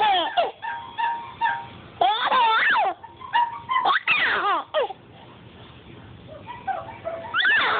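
A baby laughing in about four high, squealing bursts, with short squeaky tones between them.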